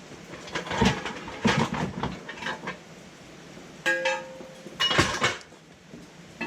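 A steel jack stand clanking and rattling as it is handled and set down, with two ringing metal strikes about four and five seconds in.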